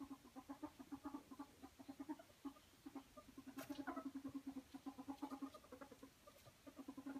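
Ferret dooking: a rapid chuckling cluck of about eight notes a second in bouts, with short breaks, the sound of a ferret excited at play.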